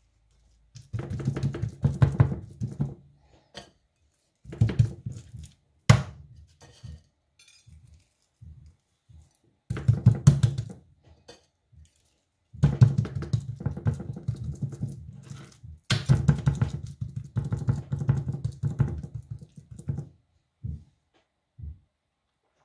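Raw steak being handled and rubbed with seasoning on a board: bursts of dull rubbing and patting with a few sharp knocks, stopping and starting.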